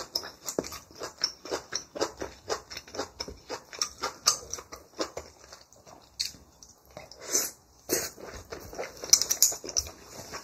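Close-miked chewing and mouth sounds of a person eating braised kimchi and rice, a steady run of quick, irregular smacks and clicks.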